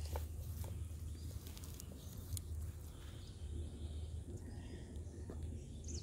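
Rustling and scattered small clicks of a nylon cast net and dry grass being handled as fish are picked out of it, over a low steady hum.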